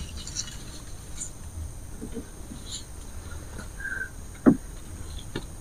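Forest background with a steady high insect drone, a short bird chirp about four seconds in, and a single short knock soon after.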